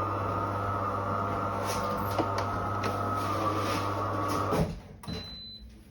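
De'Longhi Dinamica bean-to-cup coffee machine's pump running with a steady buzzing hum, stopping suddenly about four and a half seconds in. A short, faint high beep follows about a second later.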